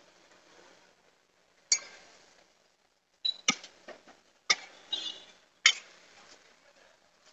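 A handful of sharp metal clinks and knocks from stainless-steel spoons against steel serving bowls, irregularly spaced. The loudest come about two seconds in and nearly six seconds in.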